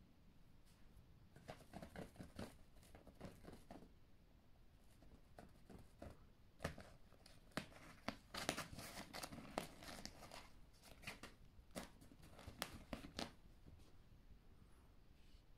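Bengal kittens scrambling in and around a nylon play tunnel: scattered short rustles and crinkles of the fabric, thickest in the middle stretch.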